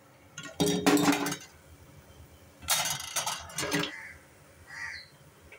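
Steel slotted spatula clanking and scraping against a stainless steel pot as fried murukku is tipped in: two clusters of metallic knocks with a short ring, about a second in and about three seconds in.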